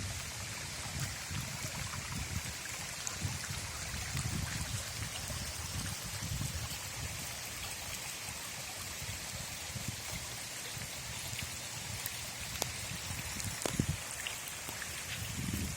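Steady hiss of water from the flood, with an uneven low rumble surging underneath.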